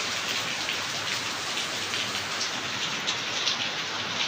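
Heavy rain falling steadily, with the patter of many drops splashing on hard surfaces.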